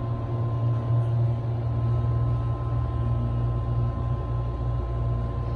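Otis elevator running: a steady low hum with a thin steady tone above it, a sound called horrible.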